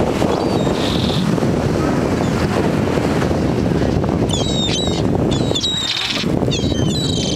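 Wind buffeting the microphone on an open beach, with surf underneath as a steady rushing noise. About four seconds in, a run of short, high-pitched cries begins and carries on to the end.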